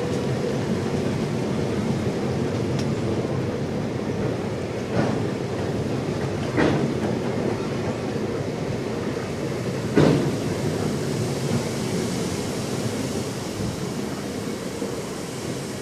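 Freight train of bogie hopper wagons rolling past: a steady rumble of wheels on rail with a few sharp clanks, the loudest about ten seconds in, easing off near the end as the last wagons go by.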